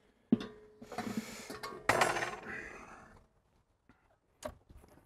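Steel parts of a Weber kettle barbecue being handled and set down on a wooden table: a sharp clank with a short ringing tone about a third of a second in, rattling and rustling, a second clank at about two seconds, then a faint click near the end.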